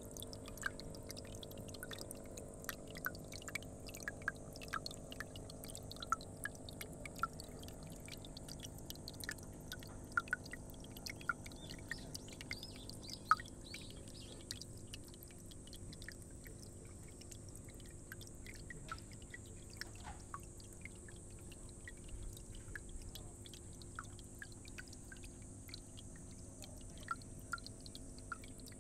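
Water trickling and dripping into a small garden fish pond: many small, irregular plinking drops over a steady faint hum.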